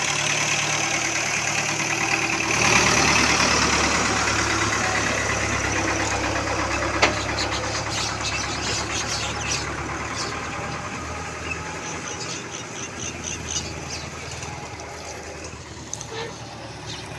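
Belarus tractor's diesel engine running steadily as it pulls a loaded sugarcane trolley past, getting gradually quieter.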